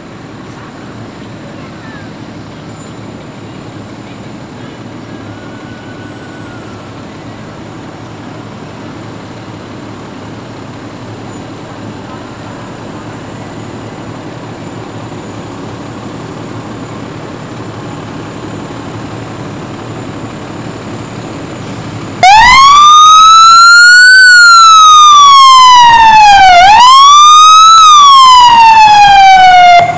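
Low, steady rumble of slow-moving fire trucks' engines, slowly getting louder. About 22 seconds in, a fire truck siren switches on suddenly and very loud, wailing up and down twice.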